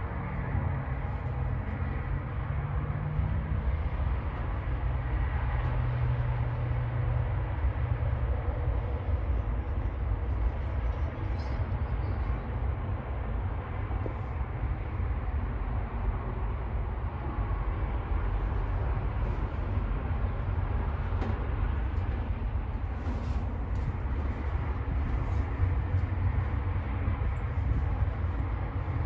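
Wind blowing across the microphone: a steady, gusting rumble with a rushing hiss above it.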